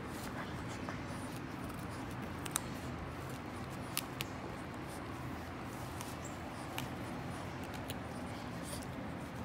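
Boston Terrier chewing lotus flower petals and stem: soft wet chewing with a few sharp crisp crunches a couple of seconds apart, over a steady low background hum.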